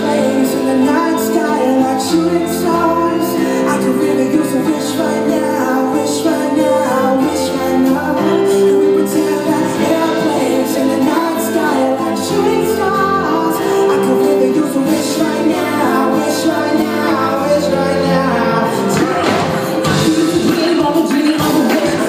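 Live band playing a pop song through the PA, with electric bass, drum kit and keyboards, and a woman singing the lead into a microphone.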